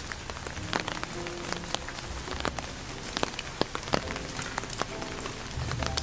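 Background music of short, scattered held notes, over many irregular sharp clicks and a steady low hum.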